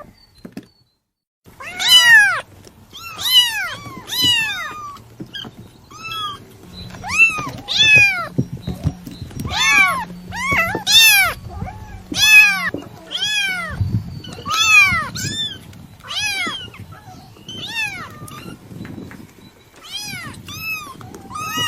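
Kitten meowing over and over, about one high-pitched call a second, each call rising and then falling in pitch. The calls start after a short silence at the beginning.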